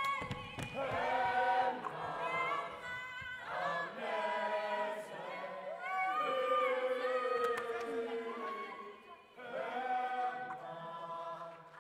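Choir singing, many voices together, dipping briefly about nine seconds in.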